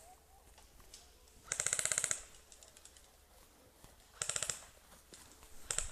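Airsoft electric gun firing full-auto bursts, a fast buzzing rattle of about twenty shots a second: a longer burst about one and a half seconds in, a shorter one around four seconds, and a brief one near the end.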